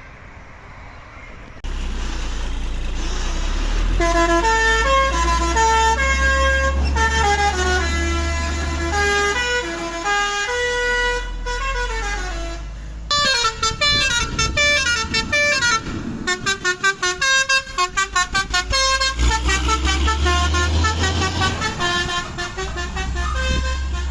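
Telolet basuri multi-tone truck horn playing a melody of stepped notes over the low rumble of a truck engine. About thirteen seconds in, another truck's telolet horn takes over, with quick pulsing notes and then another tune.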